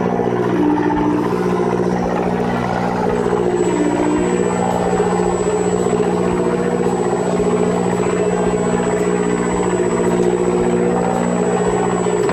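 Fishing boat's engine running steadily with an even, unchanging hum. A faint, thin, high whine joins about three seconds in.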